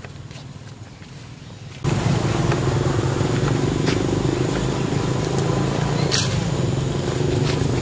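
A motor vehicle engine running steadily, cutting in abruptly about two seconds in over a quieter outdoor background, with a few faint ticks.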